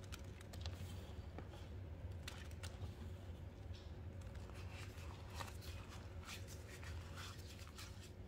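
Hands working a wet paste of baking soda, soap flakes and a lavender Dove bar soaked in Flash cleaner: faint, irregular crackling and squishing.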